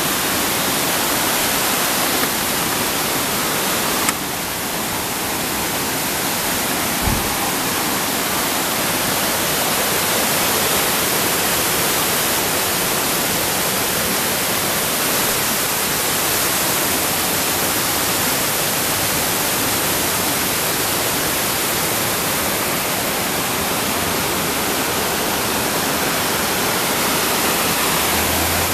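Waterfall rushing steadily, a constant dense hiss of falling water, with a couple of brief knocks a few seconds in.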